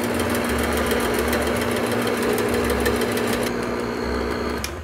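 Electric stand mixer running steadily, its twin beaters whipping heavy cream in a stainless steel bowl. The motor switches off near the end, the cream whipped to stiff peaks.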